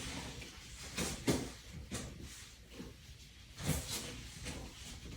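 Soft rustles and a few light knocks of things being handled close to the microphone, with a quiet room behind them.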